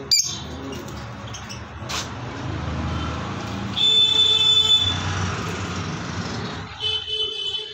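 Low rumble of a passing motor vehicle, with a knock at the start and another about two seconds in. A high, steady pitched tone sounds for about a second near the middle, and more short high calls come near the end.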